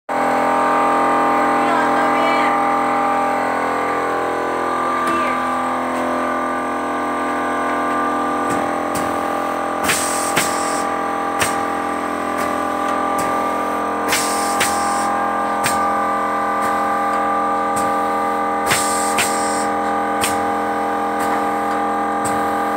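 Small automatic box packing machine running, its mechanism clacking sharply every second or so from about eight seconds in, with short hissing air blasts from its pneumatic cylinders about every four to five seconds. Under it lies a steady drone of several held tones.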